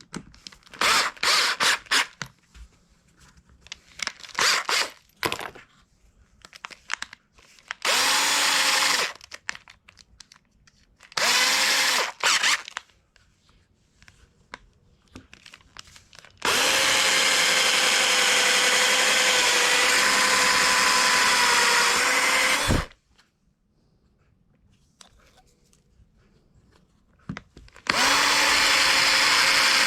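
Electric drill running in several bursts, working the plastic mounting plate, its motor pitch steady while it runs. There are short runs first, then one long run of about six seconds that winds down, then another run starting near the end. A few handling knocks come before the drilling.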